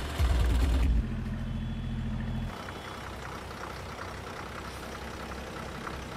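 Motor vehicle engine idling: a steady low hum that drops to a quieter rumble about two and a half seconds in.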